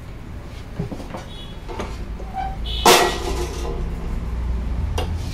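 Metal parts of a cut-off machine's vise and base being handled: light knocks, then one loud sharp metallic clank with a brief ring about halfway through and a smaller click near the end, over a low steady hum.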